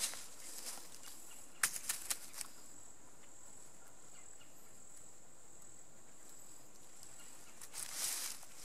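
An insect sings steadily as one continuous high-pitched whine. About one and a half to two and a half seconds in there are a few sharp clicks, and near the end dry leaves rustle as a wooden pole is lifted off the leaf litter.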